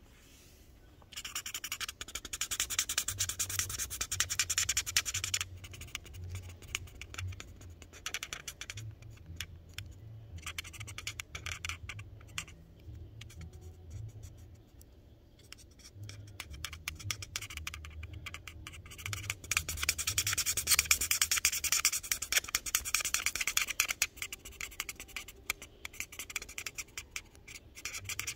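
Marker scratching back and forth on paper as an area is coloured in, in runs of quick strokes with short pauses between.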